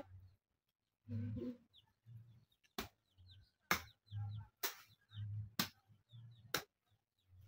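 Hand hoe chopping into the soil in a steady rhythm, about one stroke a second, starting about three seconds in. Birds chirp in the background.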